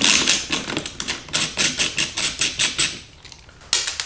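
Hand screwdriver with a clicking ratchet backing out a T20 Torx screw from a plastic door-panel speaker mount: rapid, even clicking, about six clicks a second, that stops about three seconds in. A single sharper click of the tool or screw follows near the end.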